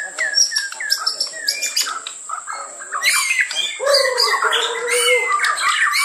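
Several caged songbirds singing and calling at once. Short falling notes repeat at first, and from about three seconds in the song turns busier, with many birds overlapping.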